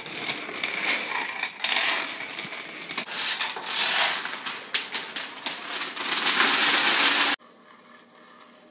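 Toy dominoes toppling in chain reactions: rapid clicking and clattering that swells to a dense clatter, then cuts off. Near the end a quieter, duller domino clatter plays through a laptop's speaker.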